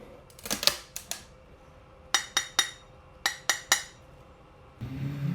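Sharp clacks of hard objects being handled, about ten in small groups of two or three. Near the end a steady low hum with wavering tones comes in.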